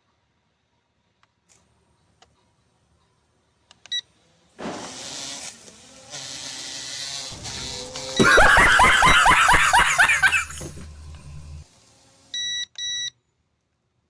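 A beep, then a P9S toy drone's motors spinning up with a whirr; about halfway through comes a loud, rapid clatter as the spinning propellers scrape the grass, before the motors die down. Two short beeps near the end.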